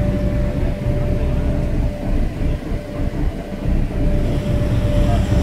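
Car audio subwoofers playing loud deep bass, heard at close range from inside the vehicle, a dense low rumble with a faint steady tone above it.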